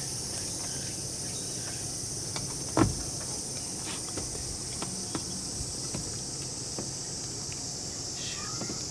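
Steady high-pitched insect chirring throughout, with scattered light clicks and one louder knock about three seconds in.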